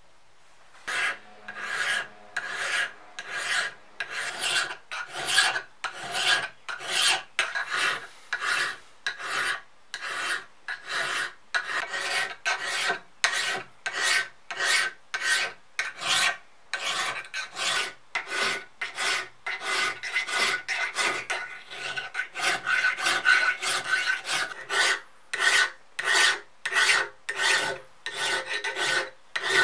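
Flat hand file scraping across the steel head of a club hammer held in a bench vise, in steady strokes about two a second that begin about a second in, each with a faint metallic ring from the head. The file is dressing the rusty edges of the head down to bright metal.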